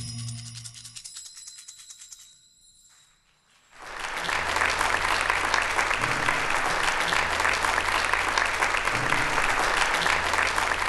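The last notes of the band's music ring out and die away over the first few seconds; after a short hush, a large audience starts applauding about four seconds in and keeps clapping steadily.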